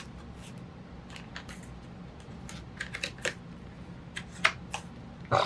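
Paper rustles and light clicks as the thick, collaged pages of a handmade art journal are turned and handled, with a sharper rustle near the end, over a faint steady low hum.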